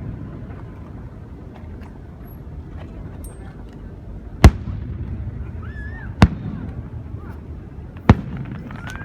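Aerial fireworks shells bursting: three sharp bangs about two seconds apart, over a steady low rumble.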